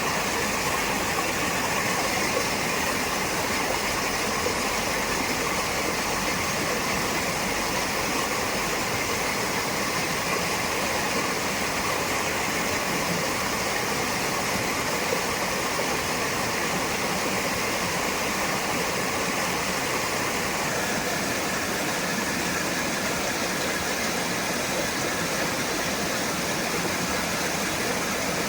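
Steady rush of water, an even hiss that holds unchanged throughout.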